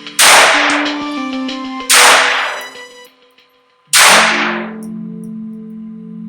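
Three sharp single shots from a Taurus TX22 .22 Long Rifle pistol, spaced about two seconds apart, each trailing off in a short echo, over background music. The music drops out briefly just before the third shot, then comes back.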